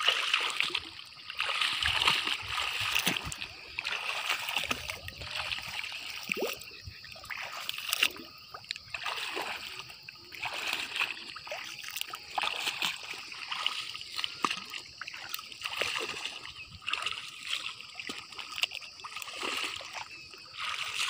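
Legs wading through shallow lake water: irregular splashing and sloshing with each step.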